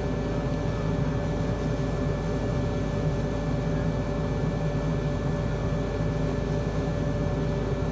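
Steady hum and rush of a bench fume-extractor fan, with the soft hiss of a small jeweller's soldering torch flame heating the piece evenly.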